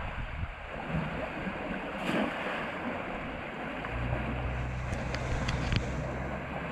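Water rushing steadily through a concrete irrigation canal below a sluice outfall. A short, louder swish about two seconds in is the cast net going out and landing. A low, steady rumble comes in at about four seconds, and there are a few faint clicks near the end.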